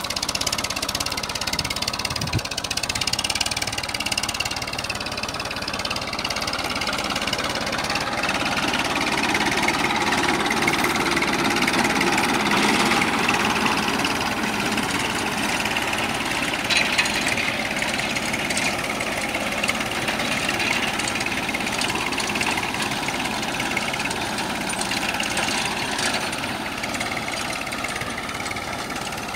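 Farm tractor's diesel engine running steadily under load as it pulls a tillage implement through a field, growing slightly fainter near the end.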